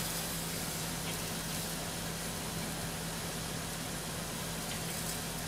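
Steady machine hum with an even hiss: the fan of a Panasonic induction cooktop running while its grill is on.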